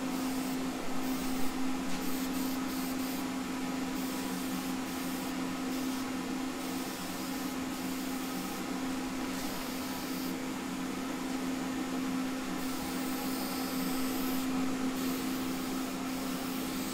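Aerosol can of primer spraying in repeated on-and-off bursts of hiss over the steady hum of a running heater.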